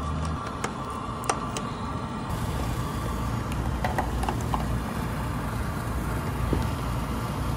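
Steady low background rumble with a faint steady hum, and a few light clicks of hand tools on the unit's wiring.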